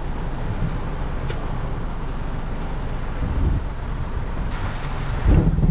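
Torrential rain on a car's roof, heard from inside the car: a steady hiss, with deeper rumbles about three and a half seconds in and again near the end.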